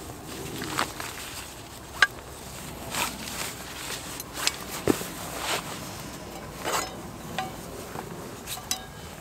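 A fabric pouch rustling as it is unpacked and a frying pan taken out, with scattered clicks and a brief metallic clink about five seconds in.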